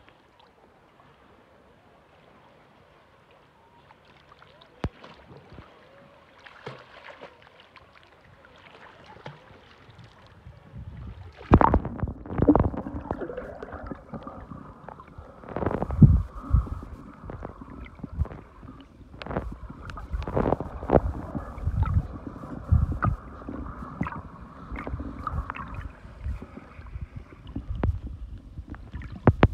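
Water sloshing and gurgling, muffled as heard underwater, faint for the first third and then much louder from about a third of the way in, with irregular knocks and thumps.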